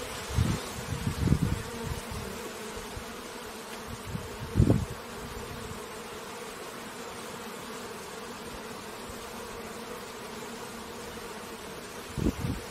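Steady buzzing of a swarm of bees at a beehive, a continuous hum. A few brief low bumps come through, one about four and a half seconds in and another near the end.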